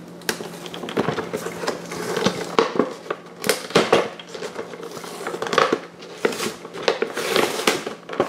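Clear plastic blister packaging crinkling and crackling as it is handled and worked open, with irregular sharp clicks and crackles.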